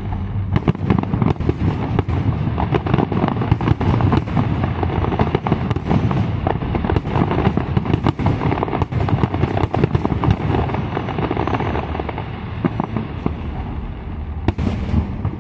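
Aerial firework shells bursting in quick succession: a dense, continuous run of bangs and crackling, easing off a little near the end.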